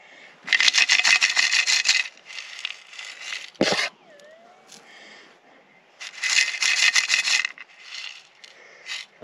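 A digging pick scraping and raking through gravel and rocky bedrock in several strokes of a second or so each, with a sharp knock about three and a half seconds in.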